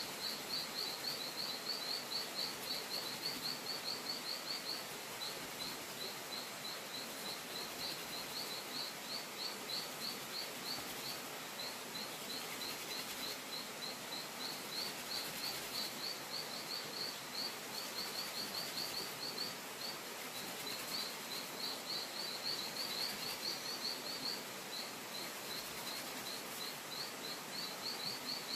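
Steady outdoor background hiss with a high chirping call repeated about four times a second, pausing only briefly now and then.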